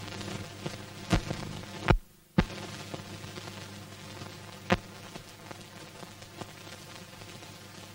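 Old newsreel film soundtrack noise: a steady low hum and hiss, broken by loud clicks and pops about a second, two seconds and nearly five seconds in, with a brief dropout just after two seconds.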